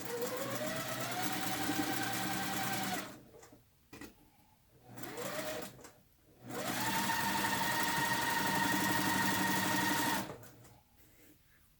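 Electric sewing machine stitching a quarter-inch seam in bursts: its motor whine rises as it speeds up and then runs steady for about three seconds, a brief spurt follows, then a longer steady run of about three and a half seconds before it stops.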